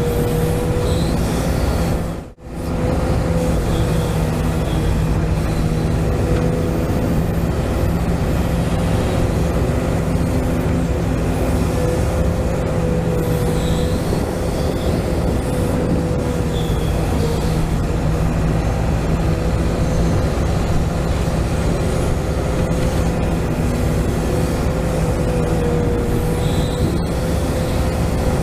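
1:14-scale RC Volvo excavator working, with a steady whine that wavers slightly in pitch over a constant low hum, and a few faint short chirps. The sound cuts out briefly about two seconds in.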